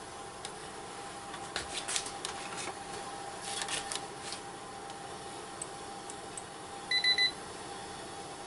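Light clicking and clatter from an automotive thermostat being handled and dipped into a pan of hot water, in two short bursts. About seven seconds in comes a quick electronic beep in three pulses, over a faint steady hum.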